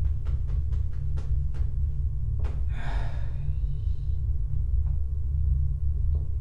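A deep, steady rumbling drone under quick, regular clicks, about three a second, that slow and stop within the first two seconds. About two and a half seconds in, a man gives one sharp, breathy gasp.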